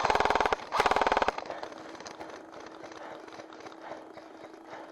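Airsoft G&P M249 SAW electric gun firing two short full-auto bursts in quick succession, a fast, even rattle of shots.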